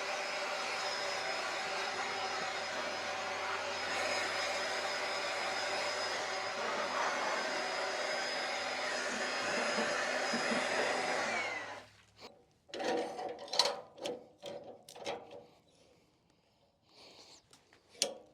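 Handheld electric power tool running steadily for about twelve seconds while dirt is cleaned off the bark of a post oak log before sawing. It spins up at the start and winds down near the end. A few knocks and clatter follow.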